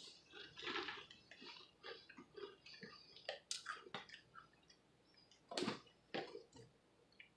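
Quiet crunching and chewing of buffalo-wing-flavored Cheez-It crackers, with two sharper clicks past the middle.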